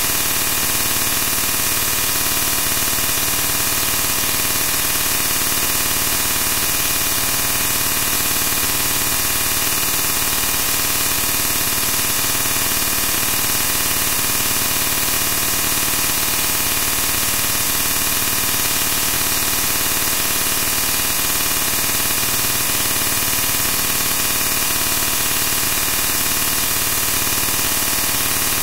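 Loud, steady hiss of static that does not change at all.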